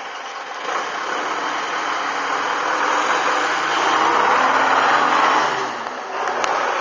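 Mercedes-Benz LF 8/6 fire engine's diesel engine pulling away and driving close past. The engine grows louder to a peak about four to five seconds in, then falls away.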